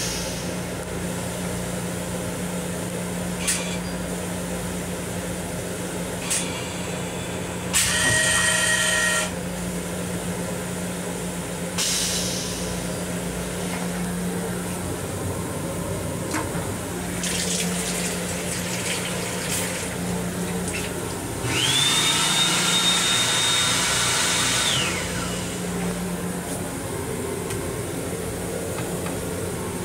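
Steady low hum in the restroom of a Long Island Rail Road M7 electric railcar, with a few short mechanical noises. About 22 seconds in, a whine rises quickly to a high steady pitch, holds for about three seconds, then drops away.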